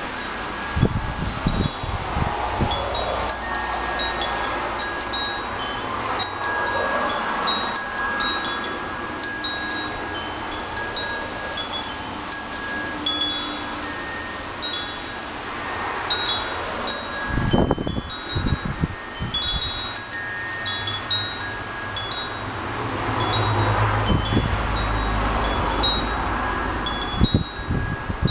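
Hummingbird wind chime ringing in strong wind: many quick, high metallic strikes over a steady ringing tone. Gusts rumble on the microphone a few times, most strongly around the middle and near the end.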